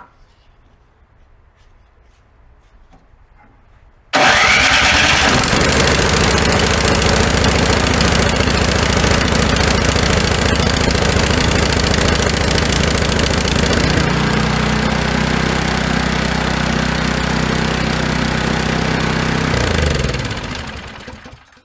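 Snow blower's small gasoline engine catching suddenly about four seconds in after a no-start from summer storage, then running steadily. Its note shifts about ten seconds later, and near the end it winds down and stops.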